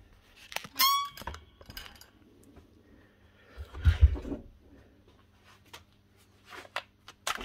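Handling noises on a workbench: a short squeak about a second in, a knock about four seconds in, and a sharp click near the end.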